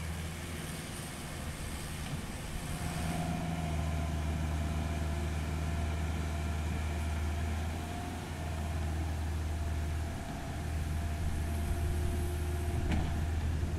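Caterpillar 305.5E2 mini excavator's diesel engine running steadily under working load as the arm and bucket dig and move soil, growing louder about three seconds in and easing briefly twice. A thin whine comes and goes over the engine, and a single sharp knock sounds near the end.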